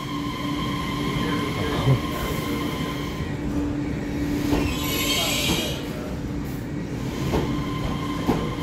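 A TRA EMU3000 electric multiple unit pulling out of the station, heard from the platform: a steady electric whine from its traction equipment over the running noise of the cars passing. There is a brief high-pitched squeal about five seconds in, and a few faint clacks of wheels over rail joints.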